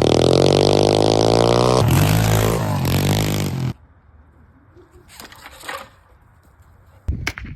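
A small engine revving, its pitch climbing, then running loud until it cuts off abruptly a little under four seconds in. Near the end a quick run of sharp clicks begins.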